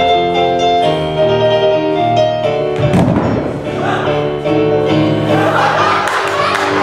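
Electronic keyboard playing live music in held chords that change every second or so, with a thud about three seconds in.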